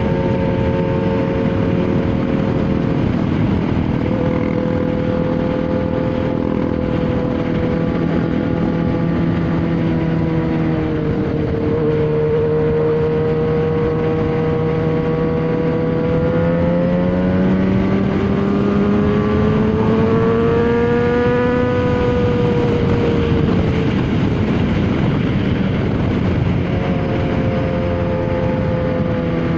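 Yamaha XJ6 600 inline-four with a Jeskap aftermarket exhaust running at steady riding revs, its pitch dipping a couple of times, then climbing steadily under acceleration for several seconds past the middle before dropping back and levelling off.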